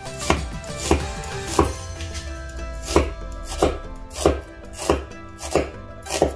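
Chinese cleaver slicing through an onion and knocking down onto a bamboo cutting board: nine even chops about two-thirds of a second apart, with a short pause after the third.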